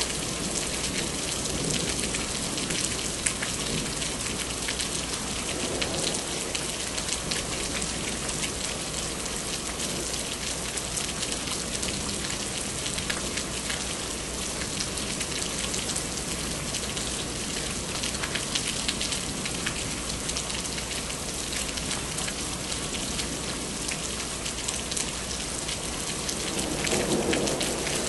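Steady rain falling during a thunderstorm, a dense patter of drops, with a brief low swell near the end.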